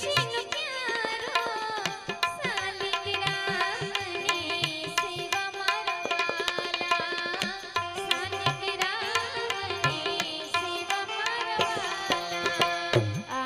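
Live devotional aarti music: tabla playing a busy rhythm under a banjo melody.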